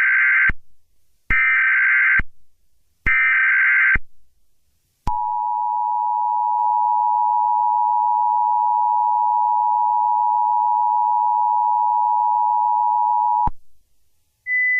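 Emergency Alert System opening sequence: three bursts of SAME digital header data, each about a second long, then the two-tone EAS attention signal held steady for about eight seconds and cutting off suddenly. A single higher steady tone starts just before the end.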